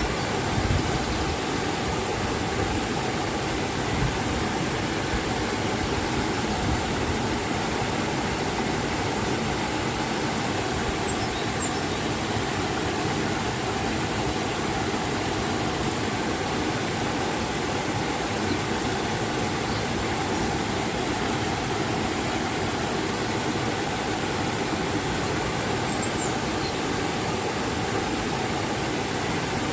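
River and waterfall water rushing: a steady, even roar of flowing and falling water.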